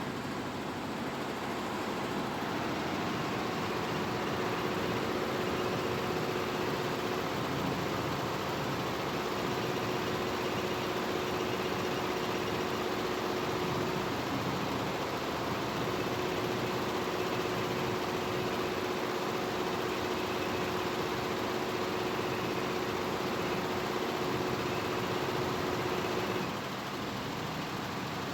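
Multi-head computerised embroidery machine running steadily, its heads stitching, with a faint steady hum that comes and goes. Near the end the hum stops and the machine noise drops a little.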